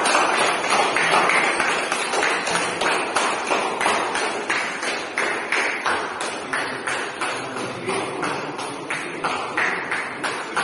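Rhythmic hand clapping at an even pace of about three claps a second.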